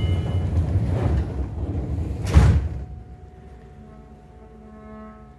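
Seibu 9000 series commuter train's passenger doors sliding shut: a rumbling slide that ends in a loud thud about two and a half seconds in as the door leaves meet.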